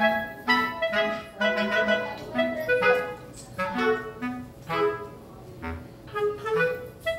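Background music: a light melody of short, separate notes, a few each second.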